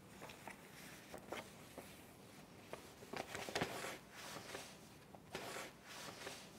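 Faint paper rustling and small ticks as a paper envelope is handled and opened, the busiest rustling about three to four seconds in.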